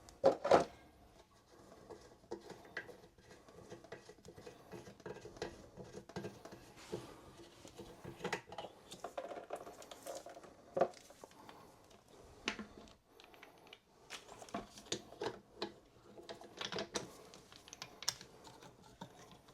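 Irregular small clicks, taps and rattles of bidet fittings and hardware being handled and fitted together, with two louder knocks about half a second in.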